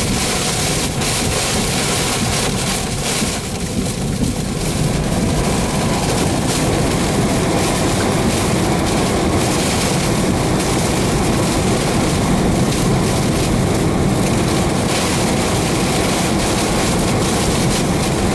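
Roar of strong rear-flank-downdraft wind and driving rain battering a stopped car, heard from inside. Steady, with a brief slight lull about three seconds in.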